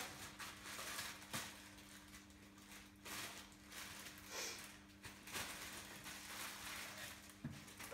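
Plastic wrapping rustling and crinkling in irregular bursts as a bicycle saddle is unwrapped, over a faint steady hum.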